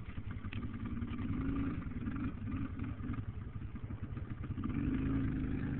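ATV engine running steadily, getting louder about a second in and again near the end.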